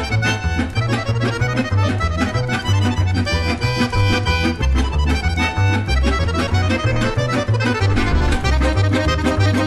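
Background music with a melodic lead over a steady, pulsing bass beat.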